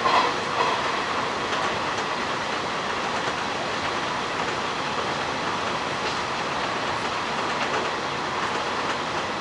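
Hanshin 1000 series electric train running at speed, heard from the front of the car: a steady rumble of wheels on rail, with two brief louder bumps in the first second.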